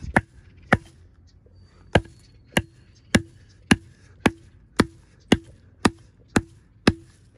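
Small camping hatchet chopping into a dead branch, about a dozen sharp strikes at a steady pace of roughly two a second, with a short pause about a second in.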